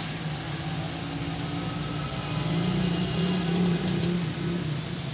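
A motor vehicle's engine running, growing louder and slightly higher in pitch between about two and a half and four and a half seconds in, over a steady hiss of heavy rain.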